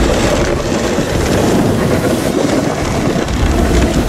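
Avalanche rumbling: a loud, steady, dense rumble of snow sliding down a mountainside.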